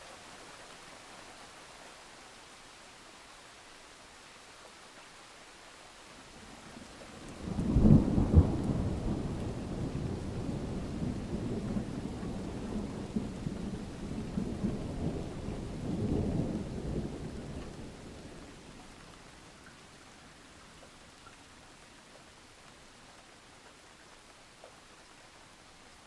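Steady rain hiss with a thunderclap breaking sharply about a third of the way in, then a long rolling rumble with a second swell that fades out, leaving the rain alone.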